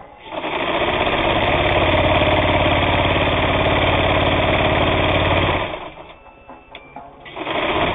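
Vintage Japanese all-steel gear-drive sewing machine running at high speed, stitching a straight seam through flannel with a fast, even rhythm, then stopping about five and a half seconds in.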